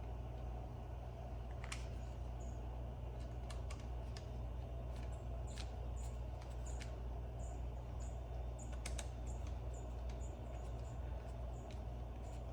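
Scattered light clicks and taps of hand tools and small parts being handled on a Torqeedo outboard during reassembly, over a steady low hum.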